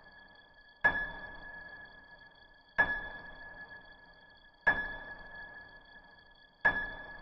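A high bell-like chime struck four times, about every two seconds, each strike ringing on and fading before the next: a slow, eerie ping.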